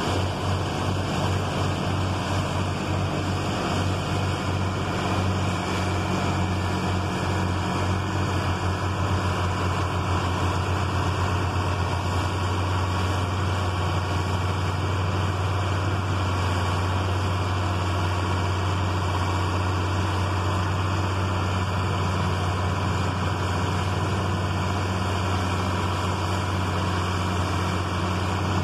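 Farm tractor running steadily under load while powering an old pull-type forage chopper chopping corn. The low engine drone pulses for the first ten seconds or so, then evens out.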